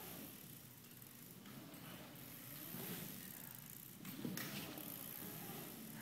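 BMX bike tyres rolling across a wooden ramp, a low rumble that swells and fades as the rider rides up and down the bowl, with a few light clicks.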